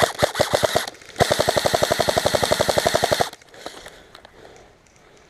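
Airsoft rifle firing on full auto in two bursts: a short one of about eight shots, then after a brief pause a longer burst of about two seconds, at roughly twelve shots a second.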